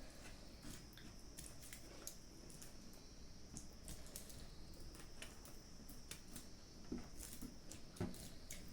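Faint eating sounds up close: soft chewing, lip smacks and small clicks, with two louder clicks near the end, over a steady faint high hiss.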